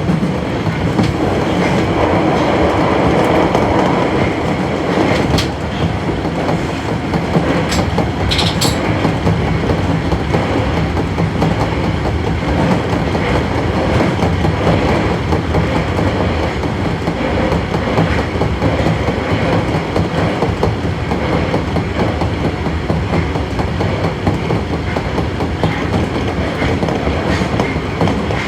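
Osaka Metro 22 series subway train running along the line, a steady running rumble with wheels clicking over the rail joints. There are a couple of brief, sharp high sounds about five and eight seconds in.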